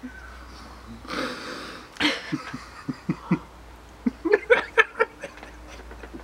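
People laughing in short bursts through mouthfuls of food, with a noisy breath out about a second in.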